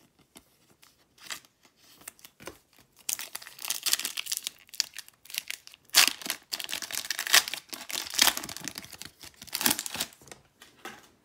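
Wrapper of a Panini Prizm basketball card pack being torn open and crinkled: scattered crackles at first, then a dense run of tearing and crinkling from about three seconds in, with several sharper rips.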